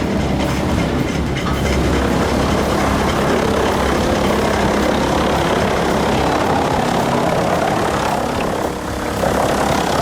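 Heavy machinery running steadily with a loud, continuous low rumble.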